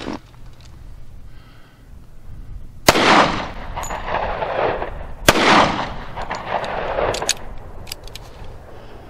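Two shots from a 1911 pistol firing Federal Hydra-Shok .45 ACP hollow-point rounds, about two and a half seconds apart, each followed by a long echo that dies away over a couple of seconds.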